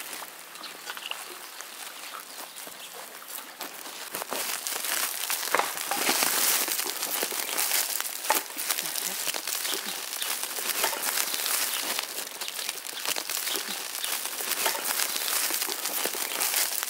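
Woven plastic sack rustling and crinkling as hands grip and twist its neck, a dense run of small crackles that grows busier and louder about four seconds in.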